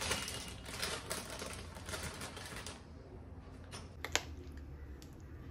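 Metal spoon clicking and scraping rapidly against a stainless-steel bowl while stirring a mayonnaise and chopped-vegetable filling, easing off after about three seconds, with one sharp clink about four seconds in.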